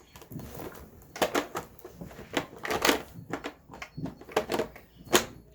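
Plastic parts of a Hoover SmartWash carpet washer being handled, pressed and snapped into place: an irregular run of clicks and knocks, the sharpest about five seconds in.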